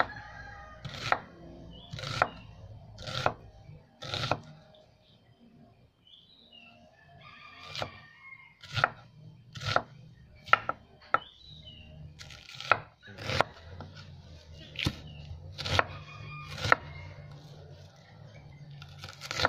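Kitchen knife slicing an onion into rings on a wooden cutting board, each cut ending in a sharp knock of the blade on the board, about one a second, with a pause of a couple of seconds about five seconds in.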